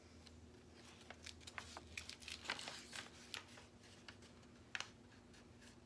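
Small plastic bags of diamond-painting drills and a paper chart crinkling and rustling as they are handled and sorted, in a quick run of crackles through the first half and one more sharp crinkle near the end.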